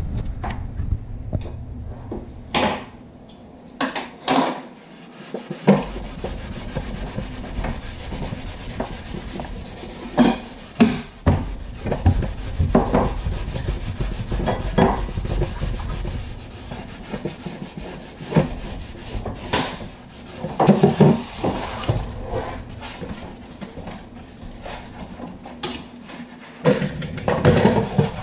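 Close rubbing and scraping at a kitchen counter right beside the microphone, with irregular knocks and clinks of kitchen prep; the knocks are loudest around ten to eleven seconds in and again around twenty to twenty-one seconds.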